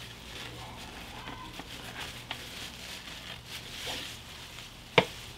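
Gloved hands handling a basil plant's root ball and setting it into potting soil in a planter box: soft rustling of leaves, roots and soil with faint crackles, and a single sharp knock near the end.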